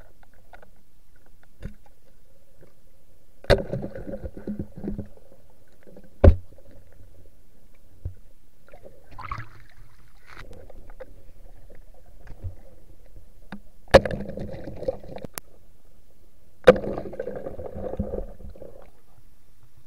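Muffled underwater sound of a diver spearfishing in a river, heard through a waterproof camera: four sharp knocks, three of them followed by a second or two of rushing, bubbling noise.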